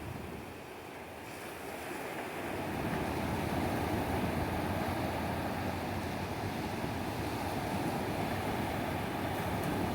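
Ocean surf washing onto a beach, a steady rushing noise that swells louder about two seconds in.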